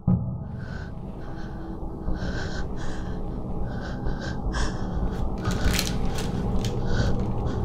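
Quick, heavy breathing, about two breaths a second, over a low steady drone: the panting of a frightened first-person character in a horror short's soundtrack, with a few sharper breaths around six seconds in.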